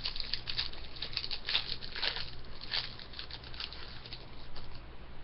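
Hockey trading cards being handled and flipped through by hand, a quick irregular run of crackly card and wrapper rustles that stops a little before the end.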